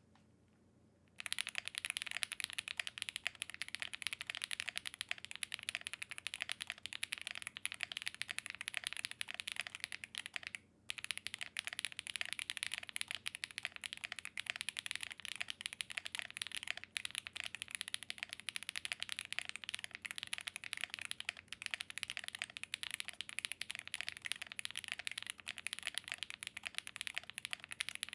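Sound test of a FinalKey V81 Plus 75% aluminum mechanical keyboard with a gasket-mounted polycarbonate plate and clacky Owlab Neon switches: steady, fast typing, a dense stream of key clacks. It starts about a second in, with a brief pause about ten seconds in.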